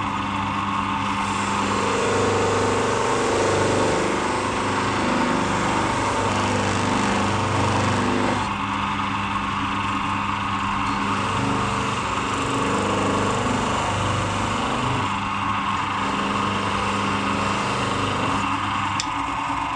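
Electric power polisher running steadily while buffing an aluminium panel to a bright finish, its hum wavering a little as the work is pressed against it.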